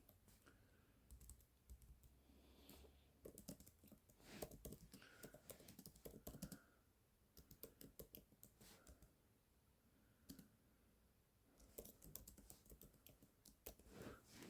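Faint typing on a computer keyboard, rapid key clicks in several bursts with short pauses between them.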